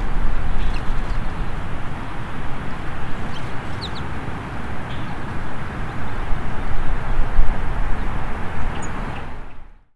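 Loud, uneven outdoor rumble, heaviest in the low end, with a few short, faint bird chirps about four seconds in; the sound fades out near the end.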